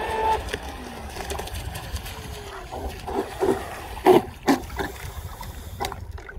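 RC speedboat's electric motor whining and falling in pitch as the boat slows on its way in, then a few sharp knocks and splashes about three to four and a half seconds in as the hull comes alongside the dock. Wind rumbles on the microphone throughout.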